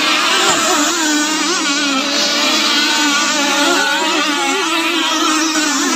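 Several 29cc two-stroke petrol-engined RC tunnel catamaran powerboats racing at full throttle. Their high-pitched engines buzz together over the hiss of spray, and each engine's pitch wavers as it bounces over the water and turns.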